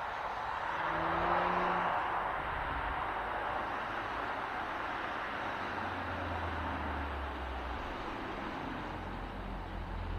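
Porsche Macan Turbo driving: a broad rush of road and engine noise that swells over the first second and a half, then holds steady, with a low engine drone coming in about six seconds in.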